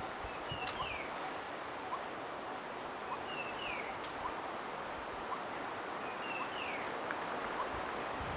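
Steady, high-pitched drone of insects in the vegetation, with a short falling chirp repeated four times a few seconds apart.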